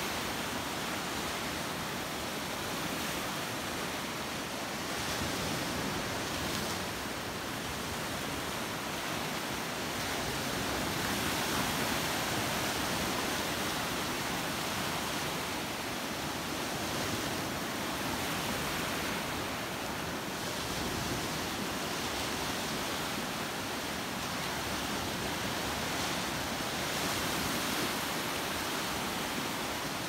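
Surf breaking on a sandy beach: a continuous wash of choppy sea with whitecaps, swelling and easing every several seconds as waves roll in.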